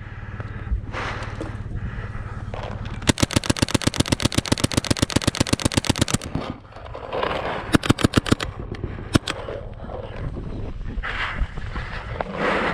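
Mechanical WGP Autococker paintball marker firing a fast, even string of shots for about three seconds, then a quick burst of about five shots and a single shot, with rapid firing starting again at the very end.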